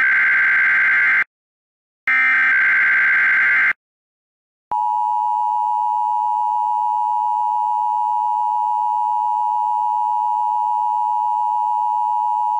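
Emergency Alert System SAME header. The end of one data burst is followed by another burst about two seconds in. A second later the steady two-tone EAS attention signal (853 and 960 Hz) begins and holds, opening a required monthly test.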